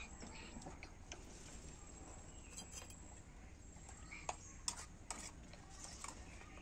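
A metal spoon stirring food in a small steel pan, giving scattered light clicks and scrapes of metal on metal, with a quick run of clicks near the middle.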